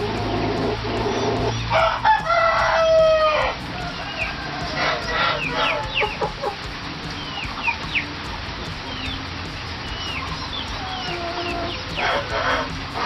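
A rooster crows once, a long call about two seconds in, followed by a scatter of short, high, falling chirps and a brief burst of calls near the end.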